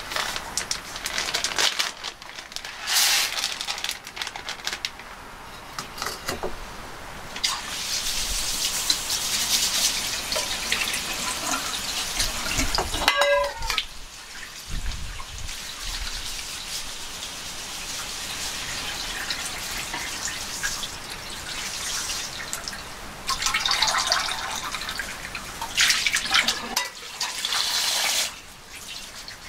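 Tap water running and splashing through a stainless mesh strainer of rice into a sink as the rice is rinsed. The flow comes and goes, heaviest through the middle and again near the end.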